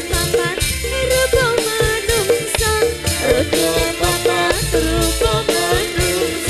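Music with a steady percussive beat, deep bass notes and a melody line that bends in pitch.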